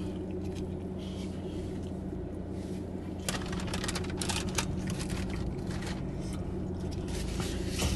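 Steady low hum of a car idling, heard from inside the cabin. From about three seconds in come scattered rustles and clicks as someone shifts in the seat and reaches toward the back.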